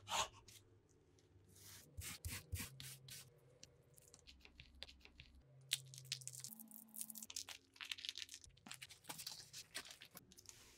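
Thin, dry whole-wheat saj flatbread crackling and scraping as it is handled on a wooden board: a knife cutting through the sheet, then the bread crinkling as it is worked and folded, in short irregular crackles.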